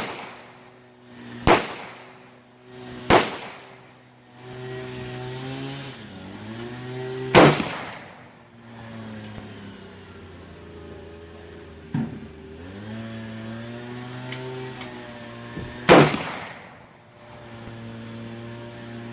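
Shots from a 6.5 Grendel AR-15 rifle with a 20-inch heavy barrel: three close together about a second and a half apart, then one about seven seconds in and one near the end, with a fainter shot around twelve seconds. A steady motor-like hum runs under the shots and dips in pitch twice.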